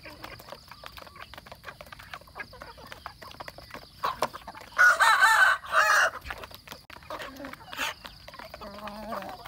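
A rooster crows loudly about five seconds in, a pitched call in two parts, over a steady patter of small clicks from chickens pecking feed off plastic plates. Softer clucking follows near the end.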